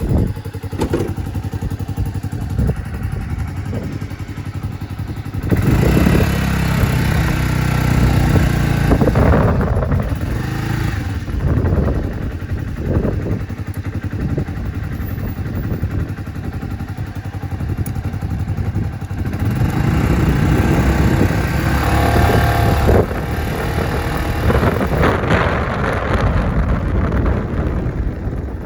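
Suzuki Skywave 250 scooter's single-cylinder four-stroke engine running, with two longer louder stretches of revving, about five seconds in and again about twenty seconds in. Some knocks and clatter come in the quieter opening seconds.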